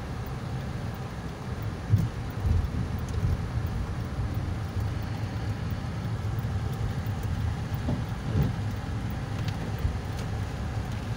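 Inside a car driving in heavy rain: a steady low road rumble and tyre noise on the wet road, with rain hitting the windshield. A couple of dull thumps come about two seconds in and again later.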